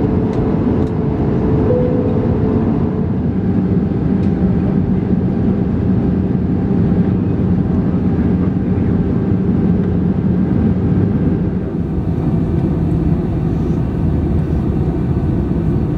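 Steady roar of an Airbus A320-200's engines and airflow, heard from inside the passenger cabin, with a low steady hum under it that grows stronger a few seconds in.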